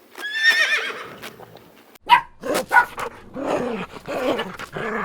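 A horse whinnies with a quavering, falling call for about a second. Then a dog barks sharply twice and carries on with shorter yelps.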